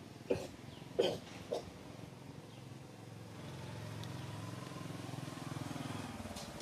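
A motor vehicle's engine running steadily, its low hum coming up about three seconds in and holding to the end. Before it, three brief sharp sounds come in the first second and a half.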